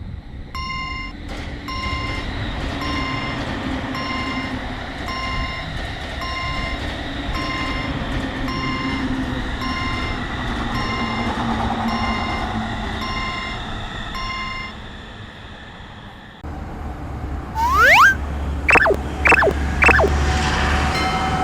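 Railroad crossing warning bell ringing in an even, repeated ding a little more than once a second, over the steady rushing noise of a train passing. About sixteen seconds in both stop abruptly; a few quick rising whistle-like sweeps follow, then a new steady tone near the end.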